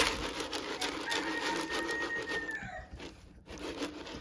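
Bantam rooster crowing: one long held call that drops in pitch at its end. Sharp clicks and clatter run under it, with a loud click right at the start.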